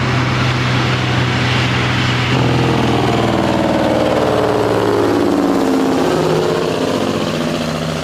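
Semi-truck diesel engine running as the tractor-trailer drives past, a steady drone that shifts in pitch about two seconds in, loudest in the middle and fading a little near the end.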